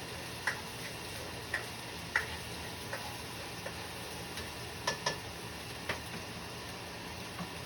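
Onions frying in oil in a pan, a steady faint sizzle, with a cooking utensil clicking against the pan at irregular intervals, about once a second, as the onions are stirred.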